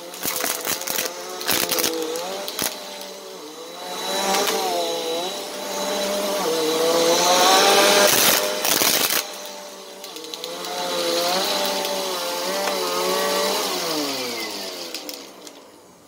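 Bissell PowerForce upright vacuum cleaner running over a shag rug, its motor whine rising and falling in pitch as the head is pushed about, with sharp clicks and clatters of plastic beads being sucked up. A little before the end the motor is switched off and whines down, falling in pitch as it fades.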